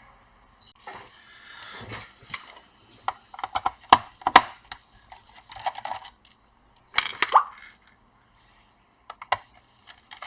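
Irregular clicks, knocks and short scrapes of a plastic laptop and hand tools being handled on a workbench, with louder clusters about four and seven seconds in.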